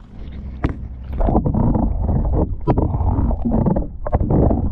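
Wind rumbling on the microphone in uneven gusts from about a second in, with scattered small knocks.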